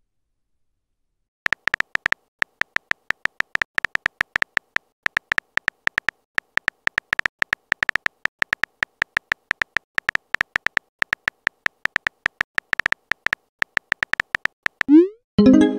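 A rapid, uneven run of short high electronic beeps, several a second, like a text-typing sound effect as chat messages appear letter by letter. Near the end a short rising tone and a louder chime follow.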